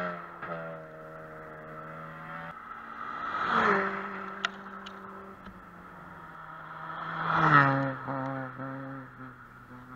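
Rally car engines revving hard as cars go flat out past on a snowy gravel stage. The tail of one pass fades at the start, then two more passes swell and fall, about a third of the way in and about three-quarters through, each engine note dropping in pitch as the car goes by. A sharp click is heard about halfway through.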